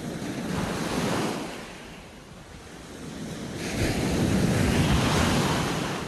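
Small sea waves breaking and washing up a sandy beach: one surge about a second in, then a louder, longer one from about four seconds in.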